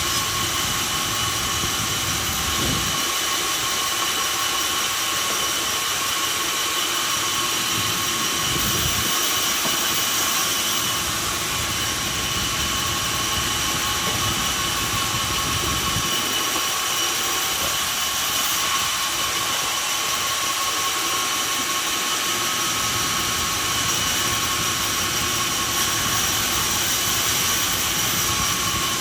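Industrial sawmill machinery running steadily: a constant rushing noise with a high-pitched whine. The low rumble underneath drops away twice for several seconds.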